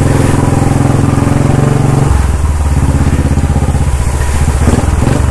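Royal Enfield Bullet's single-cylinder engine running while being ridden, its firing pulses close and even; about two seconds in the engine note drops as the revs fall.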